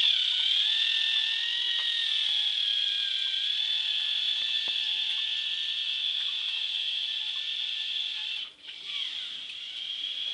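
Two small electric motors and their plastic gear train driving the paddle wheels of a K'nex toy boat: a steady high whine that drifts slightly in pitch. It dips for a moment near the end.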